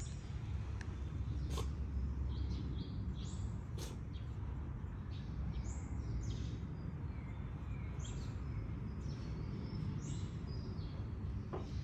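Small birds chirping in short, high calls, repeated in clusters, over a steady low outdoor rumble.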